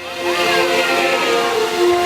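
Fireworks-show music: held orchestral notes with a few sliding tones above them, and no firework bangs.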